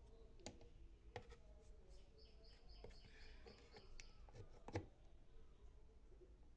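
Near silence with a few faint plastic clicks and knocks as a USB charger adapter is handled and pushed into a power-strip socket. The loudest click comes about three quarters of the way through.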